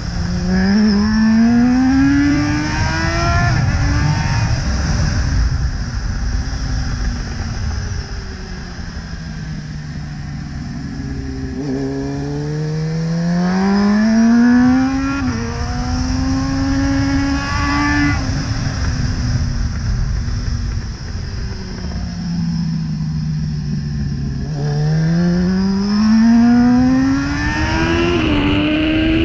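A 1998 Honda CBR900RR's inline-four engine at speed on a track, over wind rush. The engine revs up three times, and each climb is followed by a long, slow fall in pitch as the bike slows.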